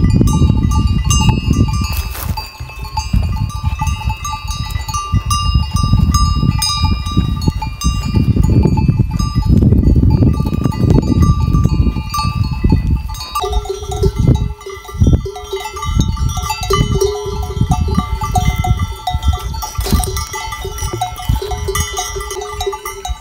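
Many bells on a grazing flock of sheep and goats clanking and ringing at once. A heavy low rumble is loudest through the first half.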